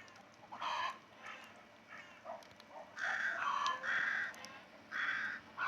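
Crows cawing: a series of harsh calls, soft at first, then louder and closer together in the second half.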